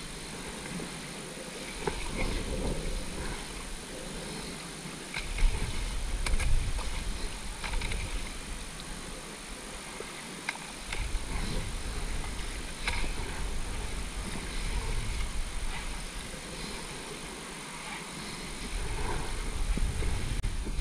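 Wind buffeting the microphone in gusts, with the splash and drip of kayak paddles dipping into river water every second or two.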